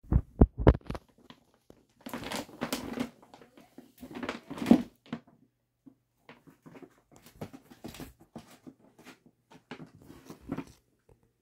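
A cat shifting about inside a shopping bag, making irregular bursts of rustling and crinkling of the bag and plastic, with a few low thumps in the first second and small scattered rustles and clicks later on.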